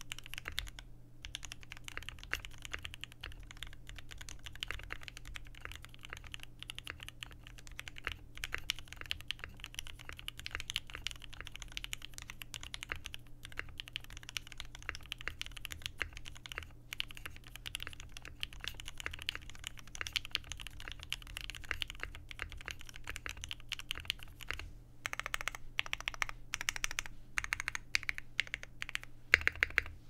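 Continuous fast typing on a Mekanisk Fjell mechanical keyboard with a brass plate, PCB foam, lubed Mekanisk Ultramarine switches and PBT Notion keycaps: a dense run of keystrokes with a couple of brief pauses, and a few louder strokes near the end.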